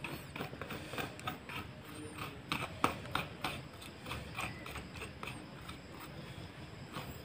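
Metal spoon scraping the soft flesh out of a young coconut shell: a run of irregular short scrapes and clicks, several a second, loudest about three seconds in.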